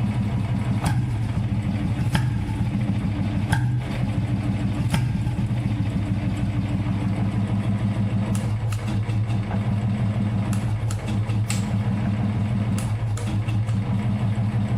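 Royal Enfield Bullet Standard 350's single-cylinder four-stroke engine idling steadily with its deep thump, breathing through an Indori filter silencer on a free-flow bend pipe. A few sharp clicks sound over the steady idle.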